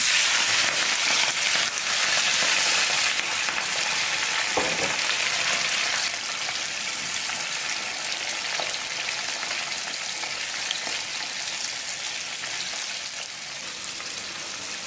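Whole shell-on prawns sizzling in hot oil in a frying pan. The sizzle is loudest as they are dropped in at the start and slowly eases as they fry, with a spatula stirring them through the oil.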